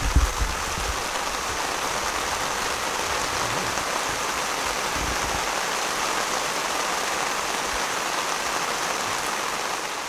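Steady heavy rain pouring down, with a few low bumps near the start.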